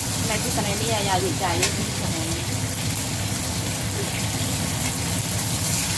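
Shrimp and garlic sizzling steadily as they are stir-fried in a stainless steel wok, with a metal spatula scraping and clicking against the pan a few times in the first two seconds. A voice is heard briefly in the background early on.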